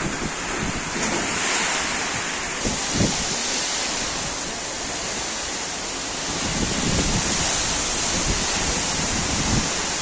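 Heavy rain pouring down steadily, with gusts of wind buffeting the microphone now and then.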